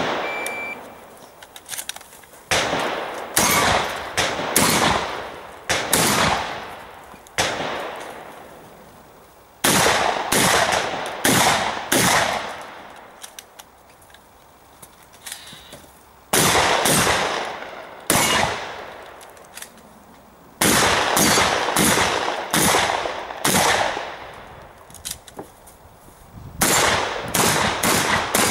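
A shotgun fires in quick strings of several shots, and each shot rings out with a long echoing tail. The strings are separated by gaps of a few seconds.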